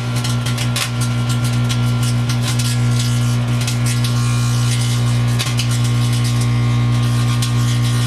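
Microwave oven running with a loud, steady hum, and irregular crackling from the plasma glowing above the candle inside it.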